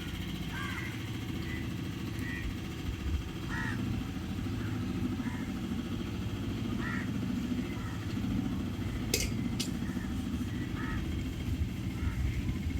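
A boat's motor runs with a steady low drone, while short high calls sound every second or so above it. Two brief sharp clicks come about nine seconds in.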